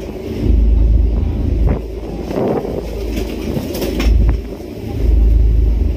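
Wind buffeting the microphone in gusts, over a steady low rumble, recorded from a moving boat.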